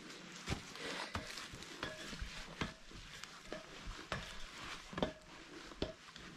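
Steel ladder knocking and clanking as it is climbed, hands and feet striking its metal rungs. The knocks come irregularly, about one a second, and several ring briefly like struck metal.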